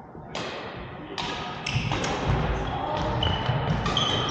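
Badminton doubles rally: sharp cracks of rackets hitting the shuttlecock, several in a row, with players' feet thudding on the court.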